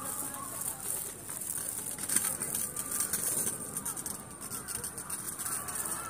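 Distant, indistinct chatter of people, over a steady high-pitched hiss.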